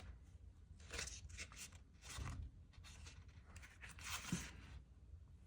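Faint rustling and crinkling of paper sticker sheets being handled, in a few short bursts.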